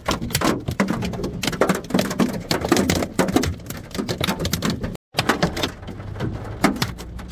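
Large hailstones pelting a car's roof and glass, heard from inside the car: a dense, irregular clatter of many hard knocks a second. There is a brief break in the sound about five seconds in.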